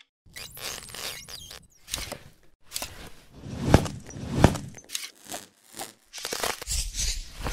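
A string of short sound effects for an animated intro: swishes, scrapes and clicks, with two louder low thumps about halfway through.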